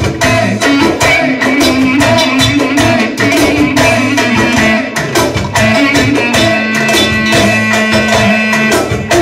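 Live band playing dance music with a steady drum beat: a clarinet carries the melody over drum kit and keyboards, settling into a long held note in the second half.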